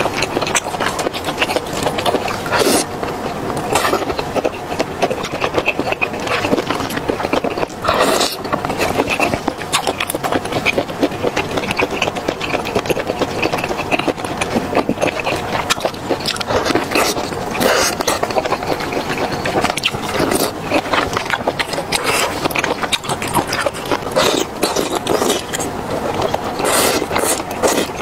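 Close-miked wet eating sounds: sauce squelching between the fingers as pieces of seafood are pulled apart, with chewing and sucking, a constant run of small clicks and smacks.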